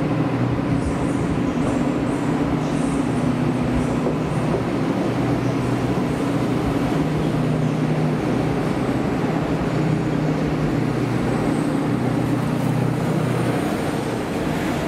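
SU42 diesel locomotive's engine running with a steady low drone. Near the end, the rolling sound of a passing train.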